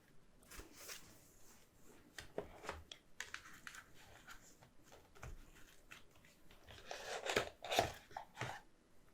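Handling of a cardboard card-deck box and paper guidebook: scattered rustles, taps and scrapes, busiest about seven to eight and a half seconds in.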